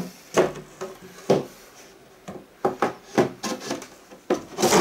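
Wooden panels of a flat-pack cat-litter cabinet being handled and fitted together: a series of irregular knocks with some rubbing and scraping of wood on wood.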